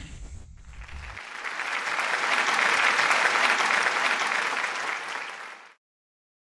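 Crowd applause that swells to its loudest around the middle, then fades and cuts off to silence near the end. A low rumble runs under the first second.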